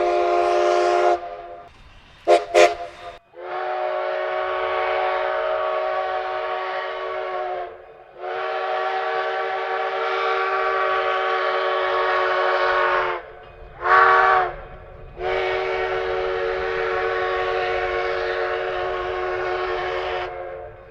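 A steam locomotive's five-chime whistle sounds a chord of several notes with some hiss. One blast ends about a second in, two quick toots follow, then a long, long, short, long sequence: the grade-crossing signal.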